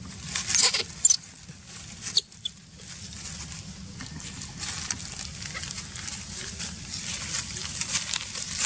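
Dry straw and leaf litter rustling and crackling close up as monkeys shift about on it: a few sharp crackles in the first two seconds, then a continuous dense crackle from about halfway through.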